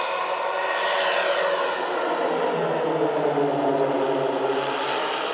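The many engines of a large RC scale Dornier Do-X model (twelve 10 cc OS engines) droning together as it flies past low. Their combined pitch drops about one to three seconds in.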